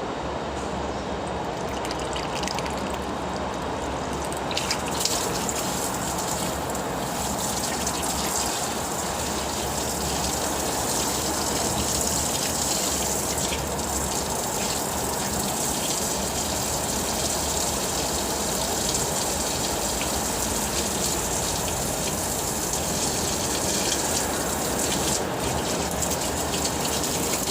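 Tap water gushing steadily with splashing, a little fuller from about five seconds in, as it runs into a pig's lungs through the windpipe to flush out the blood.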